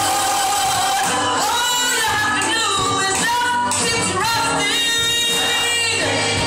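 Gospel choir of men's and women's voices singing together, with held notes that bend between pitches.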